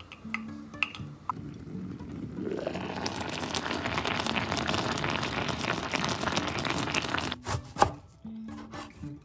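A pot of rice boiling, a dense bubbling crackle that builds up a couple of seconds in and lasts several seconds. It gives way near the end to a few sharp knife strikes chopping a red onion on a wooden cutting board, over soft background music.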